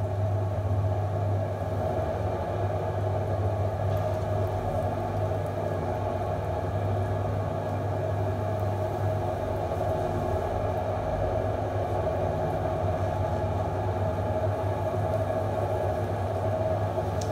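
Shimpo electric potter's wheel running at a steady speed, its motor giving a steady hum while a lump of clay is centred on the spinning wheel head.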